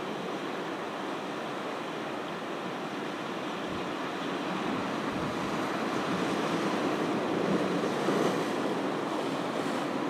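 Ocean surf washing on the beach, a steady rushing that builds louder in the second half as a wave comes in and eases again near the end.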